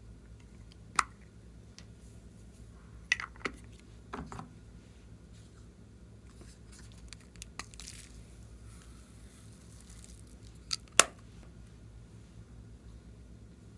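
Clear slime being worked by hand, giving a few sharp sticky pops and crackles, the loudest near the end.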